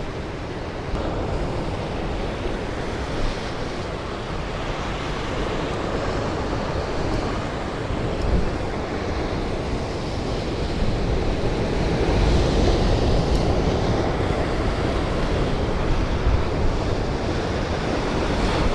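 Ocean surf washing over the rocks below, with wind buffeting the microphone; it grows louder about two thirds of the way through.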